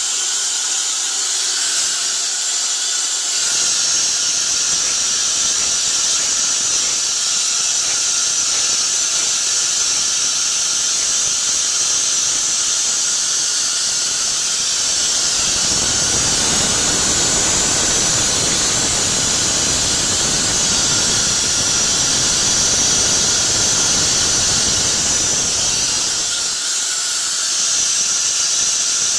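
Loud, steady high-pitched hiss of compressed air from the Hyundai SPT-V30T CNC mill's spindle tool release: the air stays on to release the pull stud while the head is up in the manual tool-change position. The hiss grows stronger a few seconds in. A deeper rushing sound joins it for about ten seconds in the middle.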